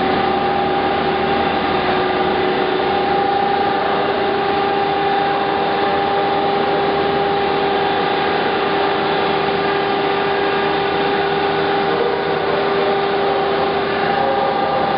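Used SMTW H-163 cylindrical grinder running: a steady machine hum with a constant whine of two held tones. The lower tone drops away near the end.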